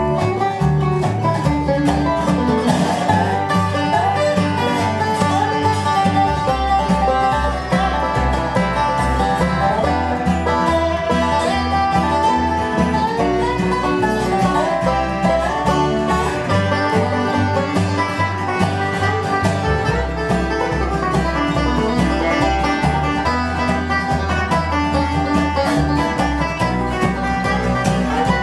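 Live bluegrass string band playing an instrumental passage: banjo, dobro and acoustic guitar picking over upright bass.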